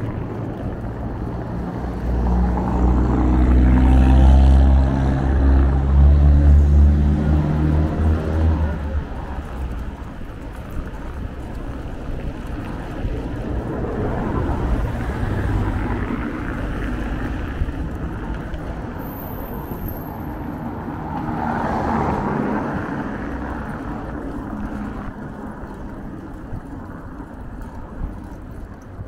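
Street traffic heard from a moving bicycle. A motor vehicle's engine passes close by with a low, loud hum for the first several seconds, then cars go by in softer swells of road noise around the middle and again later.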